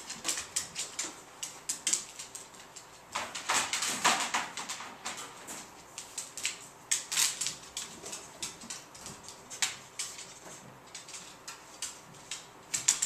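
Irregular clicks and taps from a beagle moving about: its claws on the wooden floor and its paws and nose knocking against plastic tubs.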